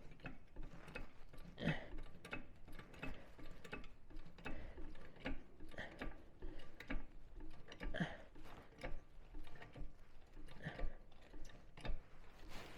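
A car jack being worked to lift the car: a run of irregular metallic clicks, with a few heavier knocks.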